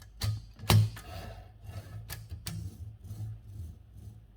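Mechanical clicks and clacks from a 1940 Royal Arrow portable typewriter's carriage and margin-setting mechanism being worked by hand, with one sharp clack about a second in and lighter clicks after it.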